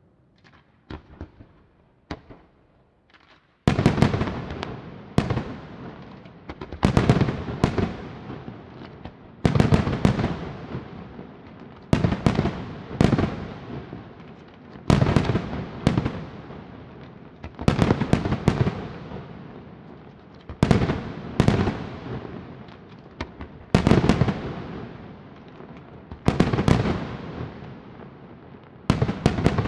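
Aerial firework shells bursting: a few small pops at first, then from about four seconds in a steady run of loud bangs every second or two, often in close pairs, each trailing off in an echoing crackle.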